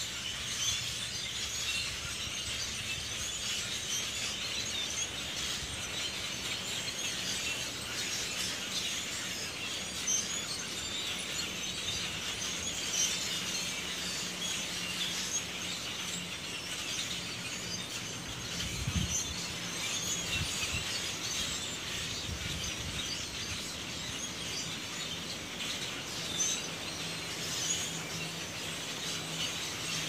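Many blackbirds calling in the treetops: a continuous mass of overlapping high chirps and chatter, with a few low bumps a little past the middle.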